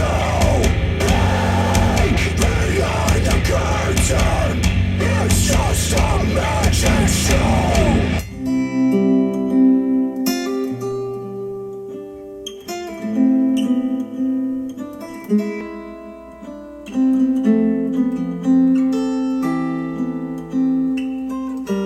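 Music played back through KEF LS50 Meta bookshelf speakers: a dense, loud song with singing, which cuts off suddenly about eight seconds in. It gives way to a sparse plucked-guitar piece of single held notes.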